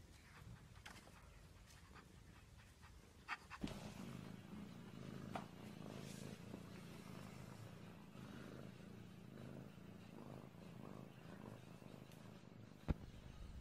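A cat purring, a low rhythmic rumble that starts a few seconds in, after a couple of soft knocks; a single sharp click comes near the end.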